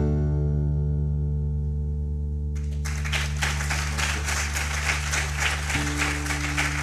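The last chord of an acoustic guitar ringing out, then audience applause breaking out about three seconds in and carrying on over the fading guitar.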